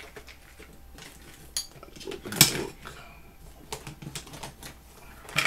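Scattered clicks and knocks of hard objects being handled on a workbench, with a louder knock about two and a half seconds in and another near the end.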